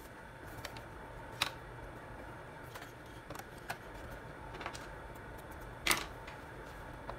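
Scattered light clicks and taps as hands handle thread and a leather vest at a sewing machine that is not running, the loudest about a second and a half in and another near six seconds, over a low steady room hum.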